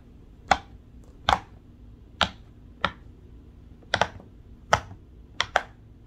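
Silicone pop-it fidget toy bubbles pressed through one at a time with a fingertip, each giving a sharp pop. There are about eight pops at uneven intervals of roughly a second or less, two of them in quick succession near the end.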